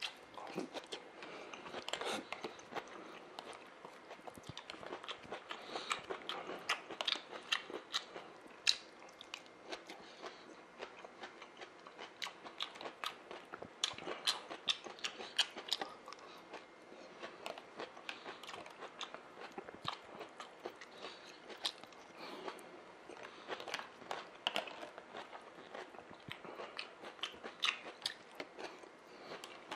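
A person chewing and crunching mouthfuls of salad vegetables, with many small clicks as a plastic fork picks at the food in a plastic bowl.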